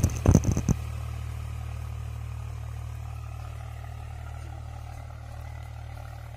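Swaraj 735 FE tractor's three-cylinder diesel engine running hard at full throttle in second high gear while it pulls a disc harrow through dry soil. It is a steady low drone that slowly fades as the tractor moves away. A few sharp knocks come in the first second.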